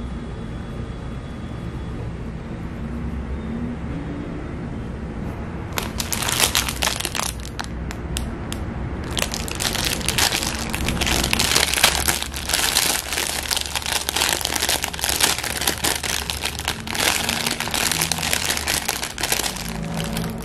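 Thin clear plastic bread bag crinkling as it is handled: a few short crackles about six seconds in, then steady crinkling through most of the second half, over a low background hum.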